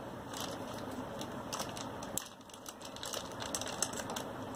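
Clear plastic accessory bag crinkling and small plastic parts clicking as a mount is handled and taken out of it: many quick, irregular crackles and clicks.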